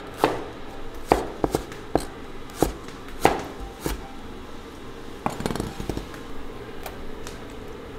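Kitchen knife cutting ginger on a cutting board: a dozen or so sharp knocks at uneven spacing rather than a fast chopping rhythm.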